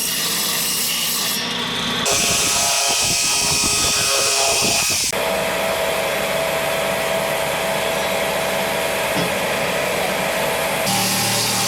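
Power tools cutting wood, in a run of short clips that change abruptly about two, five and eleven seconds in.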